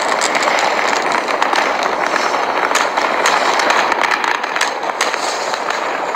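Aerial fireworks bursting and crackling in quick succession, many sharp pops over a dense, steady noise.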